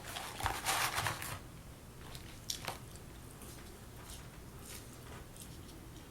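Close-miked eating: a crunchy bite into a breaded spicy chicken nugget lasting about a second, then quieter chewing with small wet mouth clicks.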